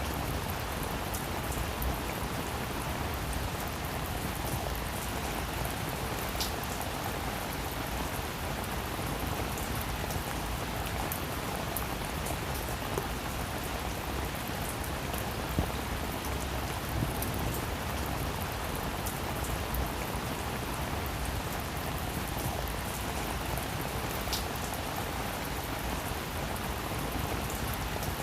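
Steady rain falling on a roof, an even hiss with many small drops ticking through it.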